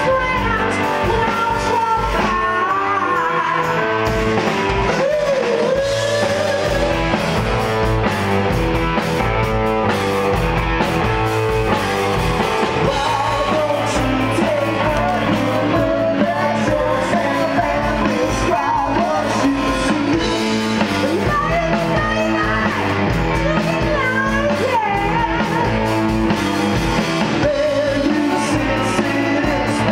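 Live rock band playing: a woman singing lead over electric guitar, keyboards and drums, loud and steady throughout.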